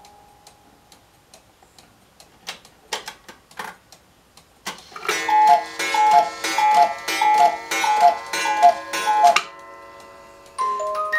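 Chalet cuckoo clock striking: ticking and clicks of the mechanism, then a quick, even run of two-note cuckoo calls from its bellows pipes with clacking of the bird and door. Near the end its music box starts a tinkling tune.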